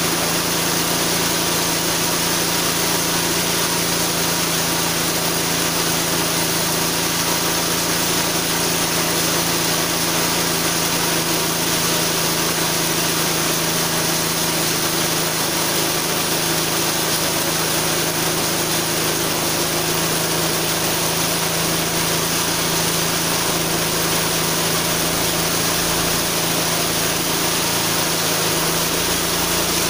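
Homemade chainsaw mill driven by a 6.5 hp small engine, running at a steady pitch as its chain cuts lengthwise through a log.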